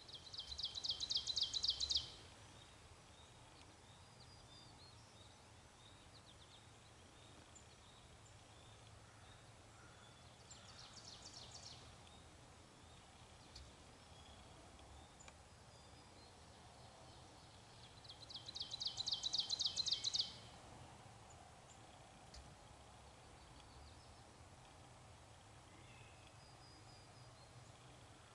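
A songbird trilling: a fast run of high, evenly spaced notes that grows louder over about two seconds and stops abruptly. It sings three times, loudly at the start, faintly about ten seconds in, and loudly again past the middle, over faint steady outdoor background noise.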